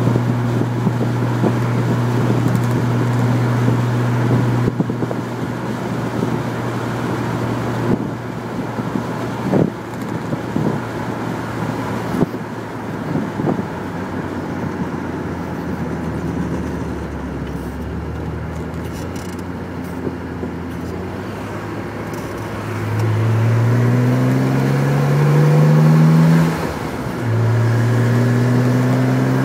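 Chevrolet Corvair's air-cooled flat-six engine heard from inside the car while driving: it runs steadily at first, drops to low revs in the middle, then climbs in pitch under acceleration near the end, falls back through a gear change and climbs again.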